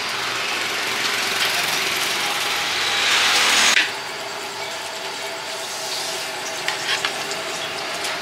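Street traffic noise, swelling as a vehicle passes, then cut off abruptly about four seconds in. After that comes the quieter, steady sound of a gas burner under a wok, with a few metal clinks of a spatula near the end.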